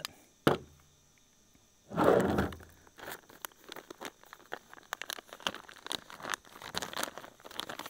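A sharp knock as the chainsaw body is set down on a plastic folding table, then a sealed plastic package being torn and crinkled open by hand: a louder rip about two seconds in, followed by continual small crinkles.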